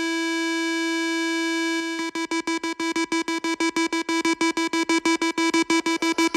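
Electronic music: a single synthesizer note held steady for about two seconds, then chopped into rapid stuttering repeats of the same note, about eight a second.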